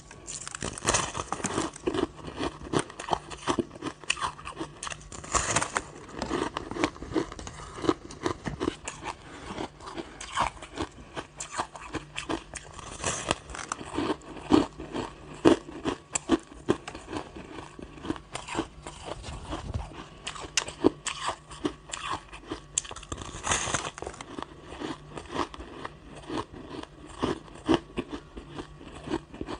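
Crunching and chewing of a frozen block of pressed shaved ice: close, irregular bites and crunches, many a second, with no pause.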